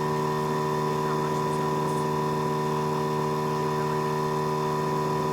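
A motor running steadily: a constant mechanical hum with several fixed pitches that does not change.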